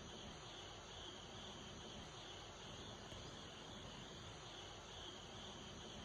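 Faint, steady insect chirring.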